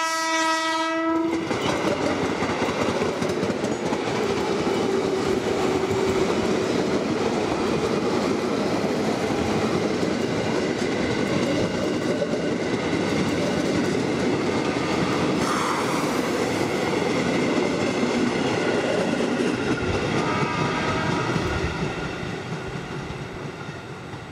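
A train horn sounds one blast that ends about a second in, then a train runs past on the tracks: a steady loud noise that fades away near the end.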